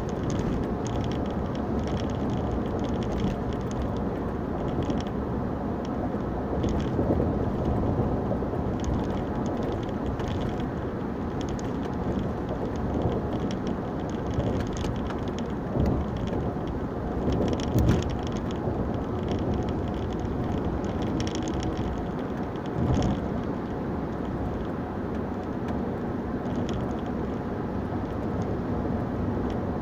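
Steady road noise inside a car cruising at highway speed: an even rumble of tyres and engine with no change in pace.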